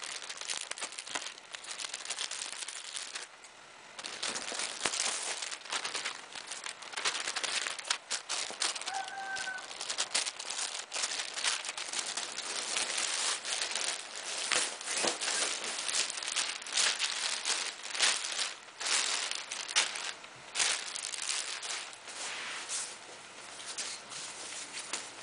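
Plastic packaging crinkling and rustling as it is handled without pause: a polyethylene mailer bag and a clear plastic bag around a jacket are opened and pulled about, with many sharp crackles.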